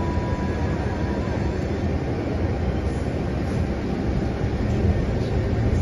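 Steady low rumble of a vehicle's engine and road noise, heard from inside the cabin in slow traffic.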